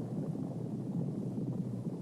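Herd of horses galloping: a steady low rumble of many hooves blurred together, with no single hoofbeats standing out.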